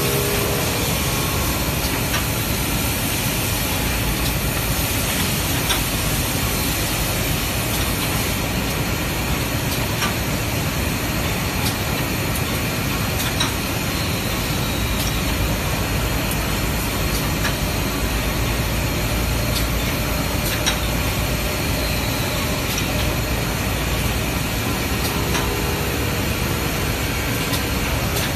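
Automatic glass drilling machine running: a steady, even hiss and hum with occasional light clicks.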